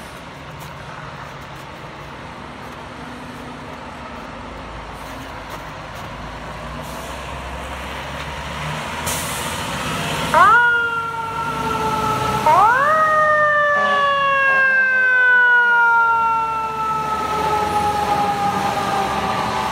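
Fire apparatus diesel engine rumbling and building in loudness as it pulls out, with a short air-brake hiss about halfway through. Then the fire engine's siren winds up twice, each time rising quickly and then sliding slowly down in pitch. The second wind-up carries on, falling, to the end.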